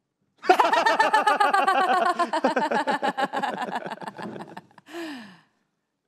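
A woman laughing: one long peal of rapid ha-ha pulses that slowly falls in pitch and fades, followed by a short breathy gasp near the end.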